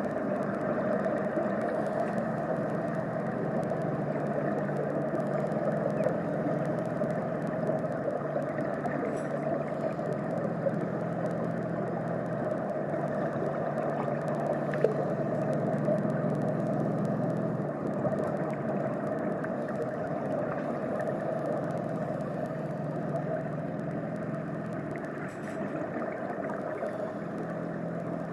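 Muffled underwater pool ambience picked up through an action camera's waterproof housing: a steady rushing noise over a low hum that shifts in pitch a few times.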